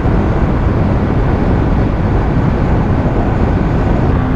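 Steady wind rush and road noise on the helmet microphone over a Yamaha R15 V3's single-cylinder engine, cruising steadily in fifth gear at about 75 km/h.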